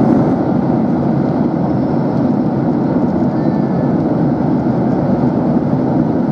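Steady cabin noise of a Boeing 737-800 in flight: the even rush of engines and airflow heard from inside the passenger cabin.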